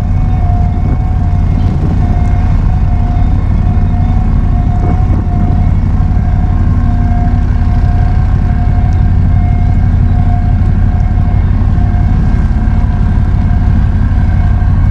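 A 2.5 hp Suzuki outboard motor running steadily under way, pushing a 20-foot boat. It is loud, with a strong low hum and a steady whine above it.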